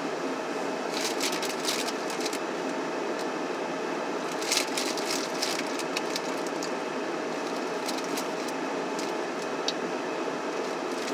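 Steady blowing hum of a parked car's heater fan in the cabin, with bursts of crackly rustling from food packaging about a second in and again around four and a half seconds, then a few scattered single crackles.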